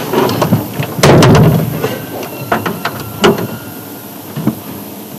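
A series of knocks and clatters, with a louder rumbling thump about a second in.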